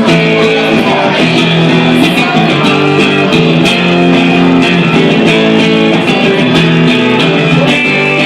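Instrumental break in a rock song: guitars playing chords and a bass line with a steady rhythm, without singing.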